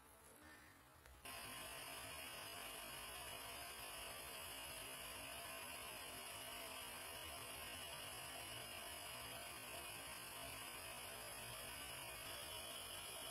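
Faint, steady hiss with a low hum, starting abruptly about a second in and holding unchanged, with no distinct events.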